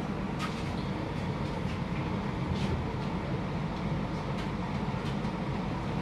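Steady low background rumble, with a few faint clicks and taps scattered through it.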